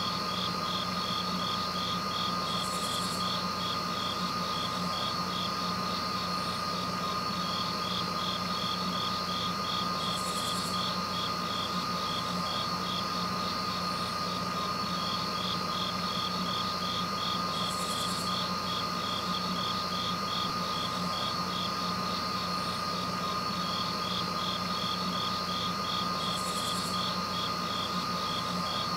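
Night insects, cricket-like, chirping in a fast, even pulse over a constant steady tone and low hum, with a short higher buzz about every seven to eight seconds.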